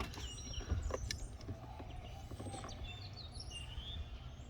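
Small birds chirping and whistling in the background, with a few sharp clicks and knocks about a second in from plastic door trim being worked loose.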